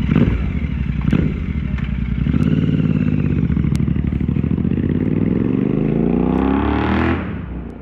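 Royal Enfield Continental GT650's parallel-twin engine running loud through a Red Rooster aftermarket exhaust. The revs climb steadily for several seconds, then drop off near the end, with a few sharp cracks in the first few seconds.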